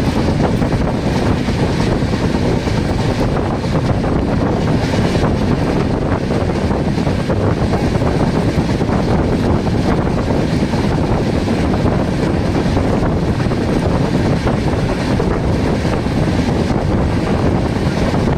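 Wind buffeting the microphone at the open window of a moving passenger train, mixed with the steady running noise of the train on the track.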